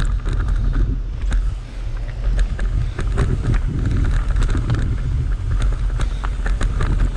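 Wind buffeting the microphone of a camera on a mountain bike riding fast down a rocky dirt trail, with the tyres rolling over dirt and stones and the bike rattling in many short sharp clicks and knocks.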